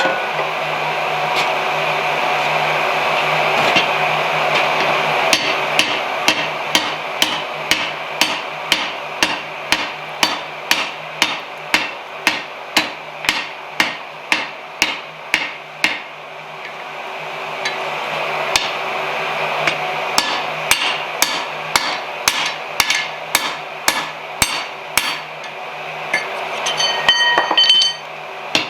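Hand-hammer blows on hot steel bar stock on an anvil, about two strikes a second in two long runs, the last few ringing. Between the runs a steady rushing noise is heard.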